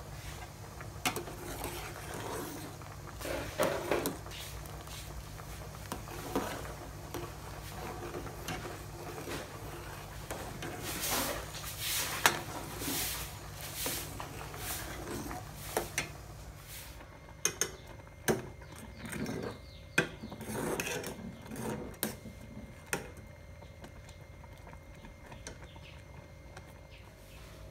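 Metal spoon stirring thick rice porridge in an aluminium pot, scraping and knocking against the pot's sides and bottom in irregular strokes. A steady low hum sits underneath and fades out about two-thirds of the way through.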